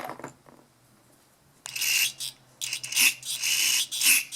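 Aerosol carburetor cleaner hissing out of its can in about four short spray bursts into the carburetor's passages, to flush them clean. A brief clatter of handling comes at the start.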